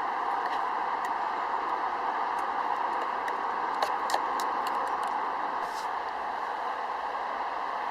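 Steady hiss of heavy rain, with a few sharp ticks or crackles about four seconds in.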